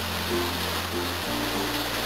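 Background music: light, upbeat instrumental with a held bass note that changes about a second in, and short notes above it.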